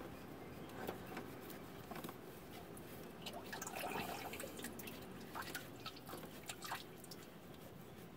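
Gloved hand gripping and twisting a spin-on oil filter to work it loose, giving irregular small clicks, ticks and rubbing, a little busier around the middle.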